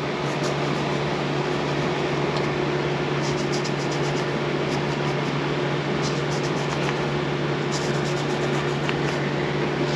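Steady mechanical hum with a hiss of moving air, typical of a running fan or air-conditioning unit, with a few faint light ticks.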